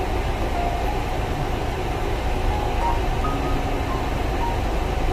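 Car driving slowly along a narrow lane: steady engine and road noise with a deep rumble.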